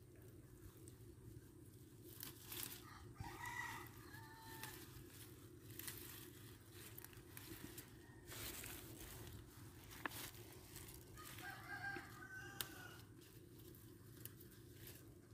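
A rooster crowing twice, faintly, each crow lasting about a second and a half. Scattered short rustles and clicks come in between.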